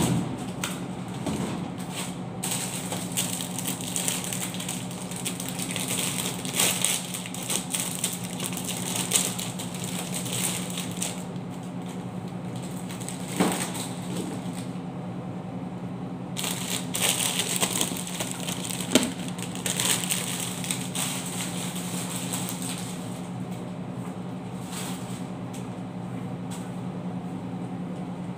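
Plastic-wrapped snack packs crinkling and rustling as they are handled and stacked on shelves, in two long spells with a couple of sharp knocks, then stopping near the end. A steady low hum runs underneath.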